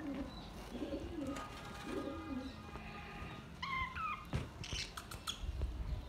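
Budgerigars calling in an aviary: a few low cooing calls in the first half, then short, bright gliding chirps, and a few sharp clicks near the end.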